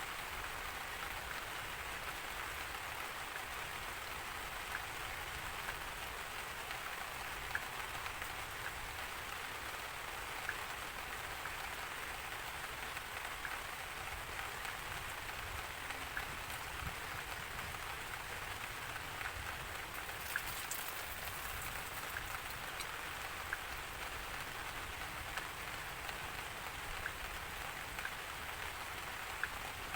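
Steady rain falling on a surface, an even hiss with single louder drops ticking out above it every second or two.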